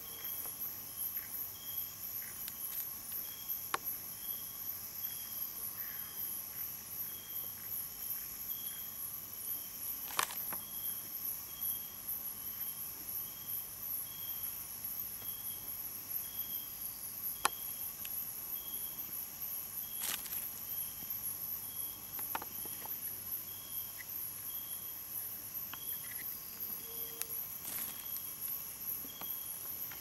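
Night insect chorus: a steady high-pitched trill of crickets, with another insect chirping regularly about one and a half times a second. Three sharp clicks stand out through it.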